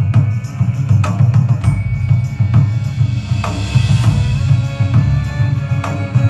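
Music with heavy drum strikes, roughly one a second, over a deep steady drone.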